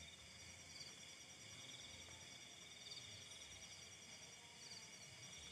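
Near silence, with the faint steady chirring of night insects.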